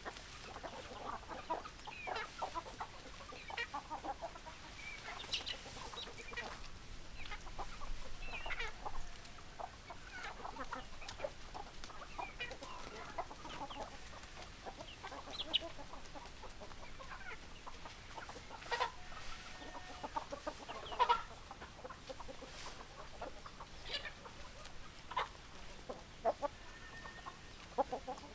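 A flock of chickens clucking, with many short calls overlapping and scattered throughout.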